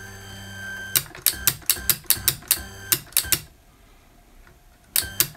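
Stepper motor belt drive of a drill press head running with a steady multi-tone whine, which stops about a second in. A quick run of sharp mechanical clicks follows, about four to five a second, then a pause and two more clicks near the end.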